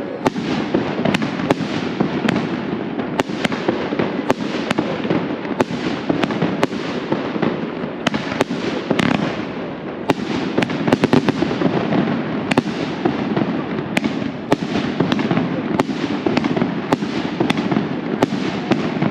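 Firecrackers going off in a continuous barrage: a dense crackling haze with frequent sharp bangs throughout.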